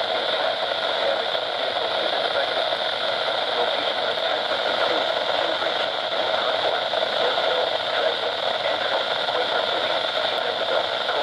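Steady hiss of radio static from a weather radio receiver, with no voice or alert tone coming through.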